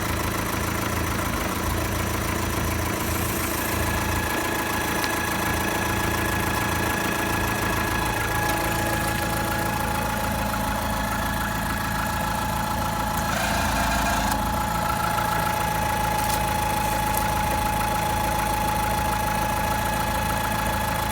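Skoda Octavia 1.4 BCA four-cylinder petrol engine idling with a steady high-pitched whistle from the crankcase ventilation (PCV) valve, which wavers briefly about two-thirds of the way through. The whistle is the sign of a faulty PCV valve diaphragm, which appeared after the diaphragm and O-rings were replaced.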